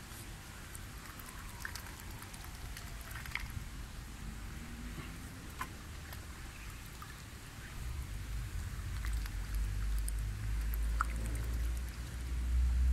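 Small scattered water clicks and drips as mute swans dabble with their bills at the pond surface. A low rumble comes in about two-thirds of the way through and grows louder toward the end.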